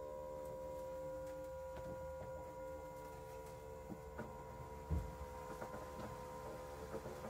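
PETKIT Pura X self-cleaning litter box running its cleaning cycle: the drum motor gives a steady hum with faint ticks as the drum turns. A single low thump comes about five seconds in.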